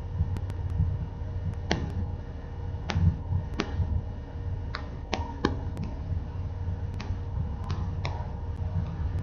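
A low steady rumble with about a dozen sharp clicks and ticks at irregular moments.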